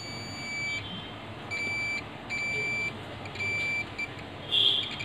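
Digital multimeter's continuity buzzer sounding about five high, steady beeps of uneven length as its probe is touched to capacitors on a laptop motherboard; each beep signals a short, near-zero resistance at that point. A brief scratchy noise comes near the end.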